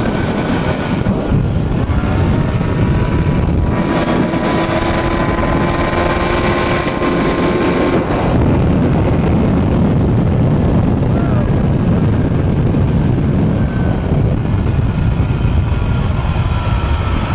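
Two-stroke go-kart engine running under way at a steady speed, mixed with a dense low rumble of wind on the microphone.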